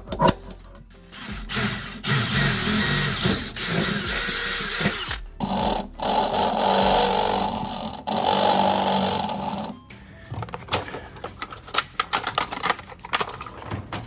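Cordless drill boring through a car's sheet-metal body panel, running in two stretches of about four seconds each with a short stop between. Then a run of sharp clicks and taps.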